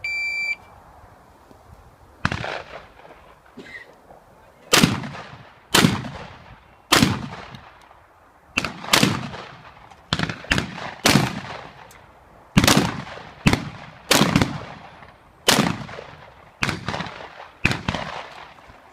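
An electronic shot timer beeps once, giving the start signal. After a pause of about two seconds, a shotgun fires a long string of shots, roughly one a second and sometimes two in quick succession, each with a short echo.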